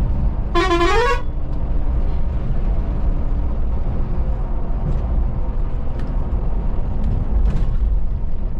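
A bus horn sounds once, a short blast that rises in pitch, about half a second in. Under it and throughout, the steady low drone of the Scania coach's engine and road noise is heard from inside the cab.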